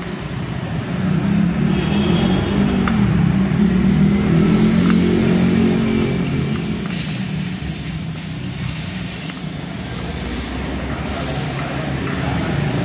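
A motor vehicle engine running steadily, with three short bursts of hissing.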